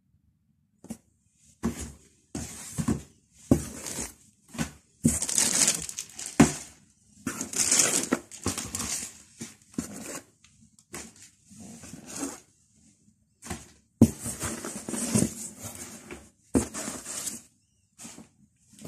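Packaging from a grocery and household delivery being handled and opened: irregular bursts of rustling and crinkling, with a few sharp knocks.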